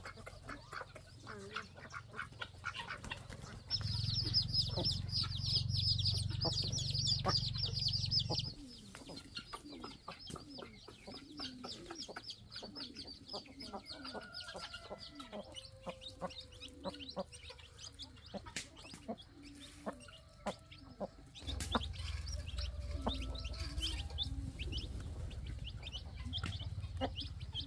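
Domestic chickens clucking, with scattered small clicks and rustles. Two louder stretches of rumbling, rustling noise come in, one about four seconds in and one near the end.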